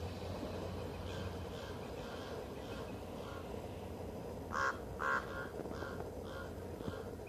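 A bird calling in a series of short repeated calls, about two a second, the two loudest about halfway through, over a steady low rumble.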